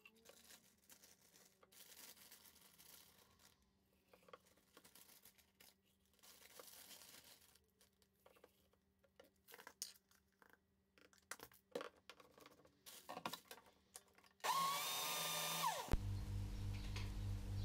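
Soft knocks and rustles from ingredients going into a blender cup, then, near the end, a Ninja blender's motor running for about a second and a half with a high whine. After it stops, a steady low hum.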